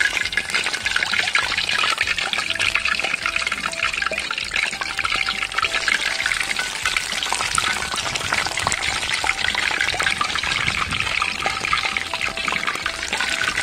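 Uzhunnu vadas (urad dal fritters) deep-frying in a large wok of hot oil: steady sizzling and fine crackling of the bubbling oil.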